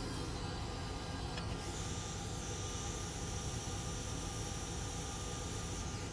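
A steady low hum of a small motor or fan. About a second and a half in, a high, steady whine joins it and cuts off suddenly near the end.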